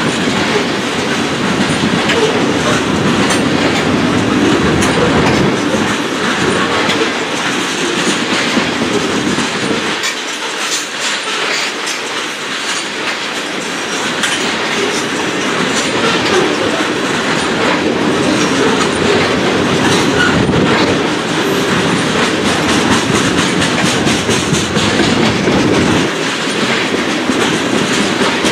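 Tank cars of a slow oil train rolling past, steel wheels clicking over the rail joints in a steady, continuous rumble.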